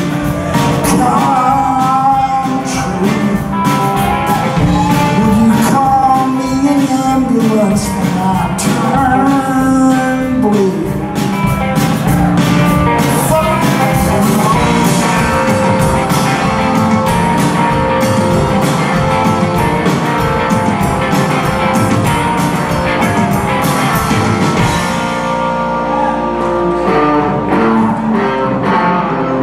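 Live rock band playing electric guitars and a drum kit, with a man singing lead.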